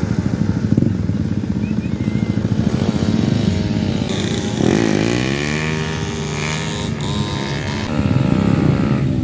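Several motorcycle engines running, with a rapid low pulsing throughout; about five seconds in, an engine's pitch drops and then climbs again as it is revved, and it rises once more near the end.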